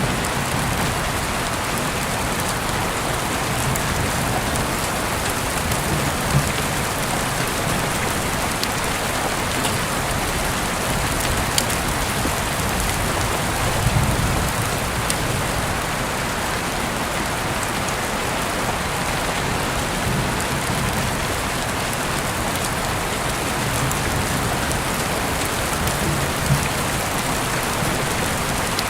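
Steady rain falling, an even hiss with a few sharp single ticks of drops scattered through it.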